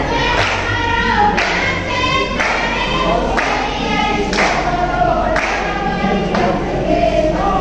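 Group of voices singing a Tharu folk song for the cultural dance, over a steady beat about once a second.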